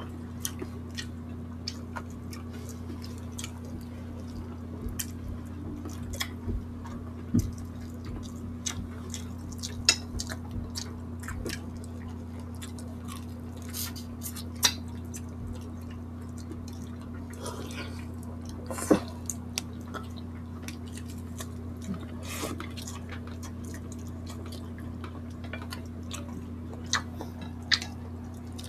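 Close-up eating sounds of people eating boiled chicken and rice with their hands: wet mouth clicks, smacks and chewing, with fingers picking at meat on plates, as scattered short clicks over a steady low hum, a few of them sharper and louder.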